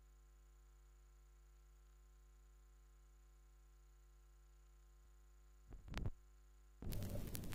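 Steady low electrical hum from the turntable's phono line. About six seconds in, a couple of soft thumps as the stylus comes down on the spinning picture-disc record. Near the end comes the crackle and surface noise of the lead-in groove before the music starts.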